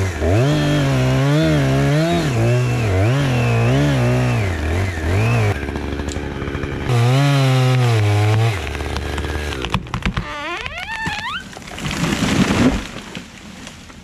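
Chainsaw cutting, its engine note wavering up and down as it bogs and recovers in the wood, then revving up sharply. A short loud rush of noise follows near the end.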